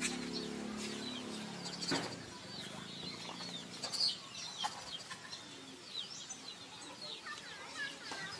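Young macaques squeaking: many short, high chirps and squeals, with a run of arched rising-and-falling calls near the end. A low steady hum sits under the first two seconds.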